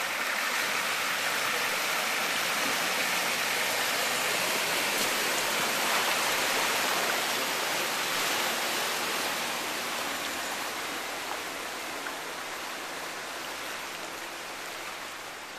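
Floodwater rushing and splashing as a Land Rover Defender 90 wades through it, its wheels and front pushing up a bow wave. A steady, even rush that slowly fades over the second half.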